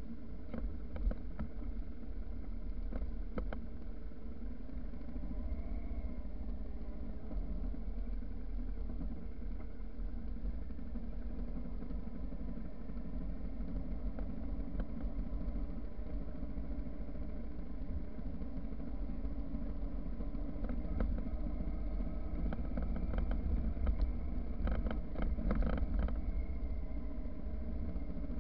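Motorcycle engine running at a steady cruise, with a low rumble of wind and tyres on a dirt road. Scattered clicks and rattles, a cluster of them near the end, as the bike rides over the rough surface.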